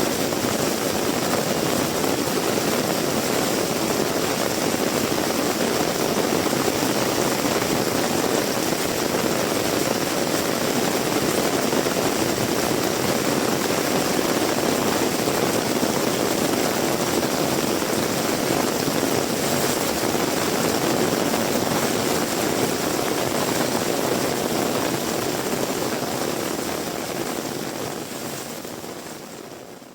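Heavy rain pouring down steadily as a dense, even hiss, fading out over the last few seconds.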